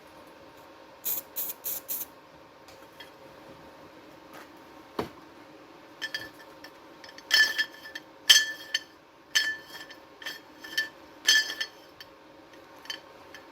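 Steel being struck with a metal tool: a series of sharp metallic taps that ring, over the second half. Four short high-pitched rasping strokes come about a second in.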